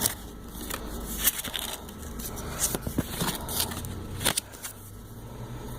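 Handling noise from small plastic items and packaging: scattered sharp clicks and light crackling, several a second apart, over a low steady hum.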